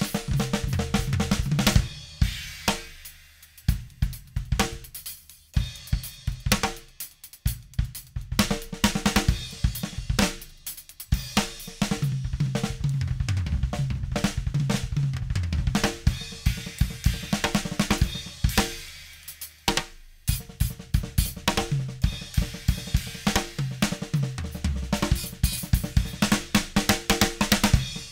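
Acoustic drum kit played, close-miked through a Behringer Xenyx 1002B mixer: a groove of kick, snare, hi-hat and cymbals broken by a few short pauses, with tom fills stepping down in pitch.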